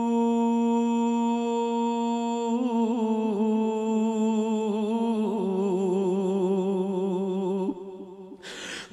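A man's singing voice holding one long sustained note, which after a few seconds breaks into wavering, sliding ornaments that step lower, in the melismatic style of Punjabi devotional singing. The note fades out shortly before the end, followed by a short rush of breath.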